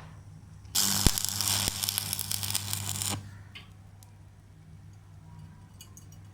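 Electric arc welder running a short weld on a steel suspension arm: a loud, dense crackle starts about a second in, lasts about two and a half seconds, then stops abruptly. A steady low electrical hum runs underneath.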